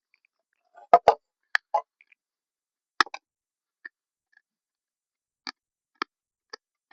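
Short, irregular clicks and taps of a hand screwdriver working on the screws of an old radio speaker, about ten in all.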